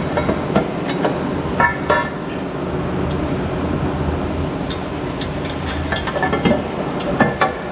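Metal hand tools clinking and knocking irregularly against the exhaust header and engine while the header is worked loose. A steady low hum runs underneath.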